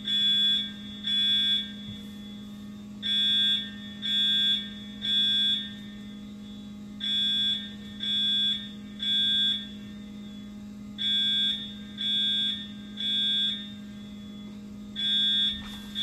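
Edwards EST Integrity fire alarm sounding the temporal-three evacuation signal: a high, piercing tone in groups of three short blasts about a second apart, each group followed by a pause of about a second and a half, repeating steadily.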